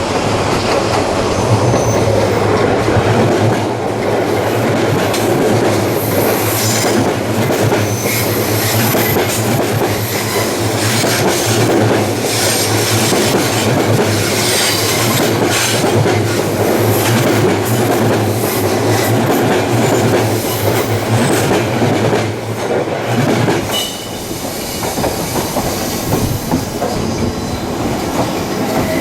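Odakyu Line electric train passing over the level crossing, wheels clacking over rail joints with some wheel squeal. A steady low hum runs under it and drops away about 24 seconds in.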